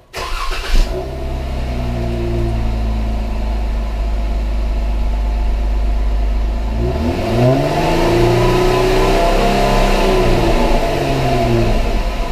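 2015 Jeep Wrangler JK's 3.6-liter V6 starting up, catching with a brief flare about a second in, then idling steadily through its cat-back exhaust. In the second half the throttle is blipped several times, the engine revving up and falling back.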